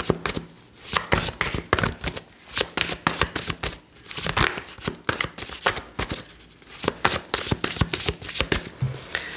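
Tarot cards being shuffled and handled: a long run of quick, irregular soft flicks and taps.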